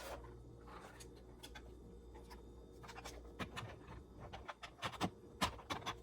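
Light clicks and knocks of items being handled in a kitchen, over a low steady hum; the knocks come thicker and louder in the second half.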